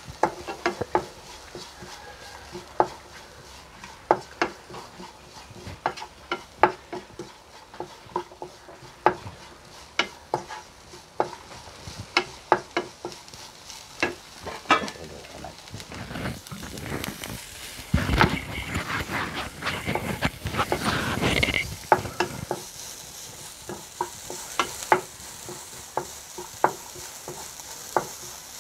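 A spatula stirring chopped onions and crushed black pepper sautéing in a frying pan, tapping against the pan about once or twice a second over a light sizzle. The stirring gets louder for a few seconds past the middle.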